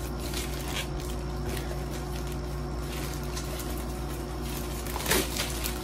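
Plastic courier pouch rustling and crinkling as it is cut open with scissors and handled, with one louder crinkle about five seconds in, over a steady low hum.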